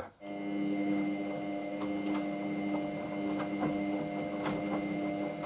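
Hoover washing machine's motor and drum running with a steady hum and a few faint light ticks, as the machine makes a second attempt at its intermediate spin after the load came out unbalanced.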